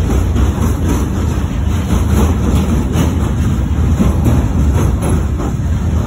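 Freight train wagons, open gondolas and container flatcars, rolling past: a steady low rumble of steel wheels on rail, with light repeated clicks from the wheels crossing the track.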